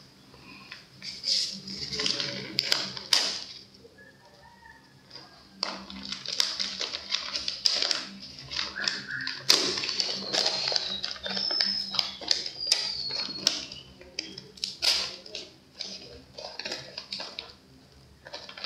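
Kraft paper bag and paper receipt being handled, folded and unfolded: irregular bursts of paper rustling and crinkling, with a couple of short pauses.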